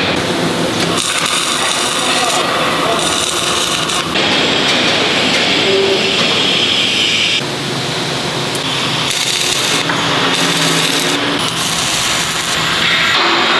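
Loud, continuous steel-fabrication shop noise from metalwork on a steel excavator bucket, changing abruptly several times. Near the end the noise shifts toward the crackle of arc welding.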